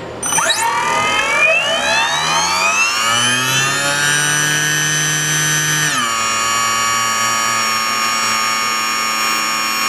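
Brushless motor driven by a Castle ICE2 HV160 speed controller whining as the throttle brings it up to speed, the pitch rising for about six seconds. It then drops slightly and holds a steady whine at 50% throttle.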